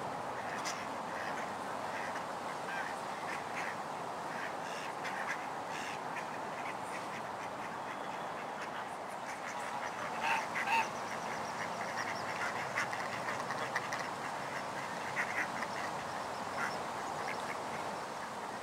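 Mallard ducks quacking in short calls over a steady background hiss. The calls are loudest in a cluster about ten seconds in and again around fifteen seconds.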